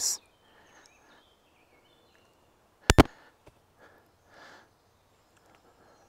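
Two sharp knocks in quick succession about three seconds in, while a log is lifted by a rope, over faint birdsong.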